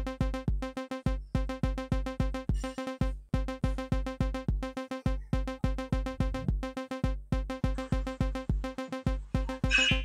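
Live-coded electronic loop: short pitched 'arpy' sample notes over low 'bassdm' bass-drum hits, repeating in a fast, steady pattern with brief rests. A short noisy burst joins near the end.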